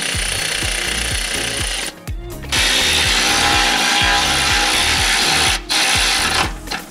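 Cordless power ratchet running in bursts as it spins bolts, stopping briefly about two seconds in and again near the end. Background music with a steady beat plays underneath.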